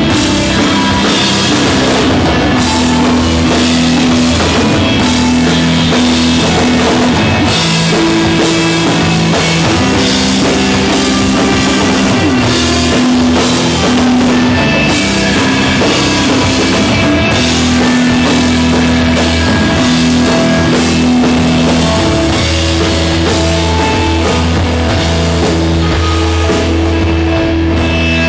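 Live stoner rock band playing instrumentally: a drum kit with steady cymbal wash over a held bass line and sustained electric guitar notes.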